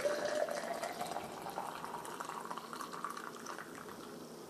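Coffee poured from a stainless-steel French press into a metal travel mug: a steady stream of liquid filling the mug that tapers off toward the end.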